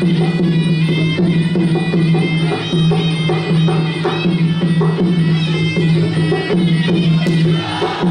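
Traditional Khmer boxing music: a reed oboe plays a continuous nasal melody over hand drums beating a steady rhythm.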